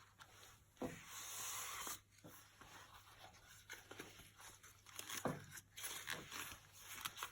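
Faint rustling and crinkling of a wilted banana leaf being folded into a parcel by hand, with a longer rustle about a second in and a few soft taps.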